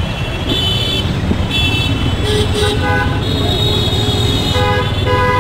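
Busy city street traffic: a steady rumble of engines with several car horns honking in short blasts one after another, and a two-part honk near the end.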